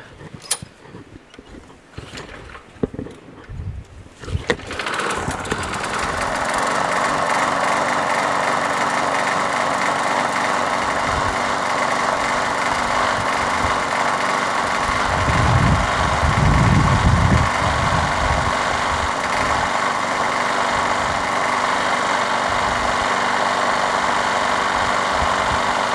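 Craftsman push mower's small engine pull-started: a few faint knocks, then it catches about four and a half seconds in and runs steadily. A brief low rumble comes about halfway through.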